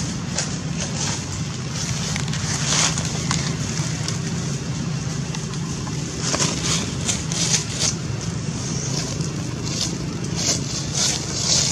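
A steady low hum like a distant motor, with irregular crackling rustles over it in clusters.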